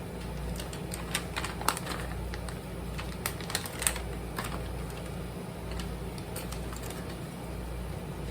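Scattered light clicks and taps from items being handled in a kitchen, bunched in the first half and sparser later, over a steady low hum.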